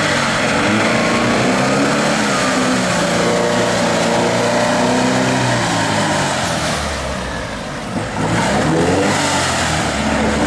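UAZ-469 off-roader's engine revving hard, its pitch climbing and falling, as the mud tyres spin and churn in deep mud with the vehicle stuck. The revs drop briefly about seven seconds in, then climb again.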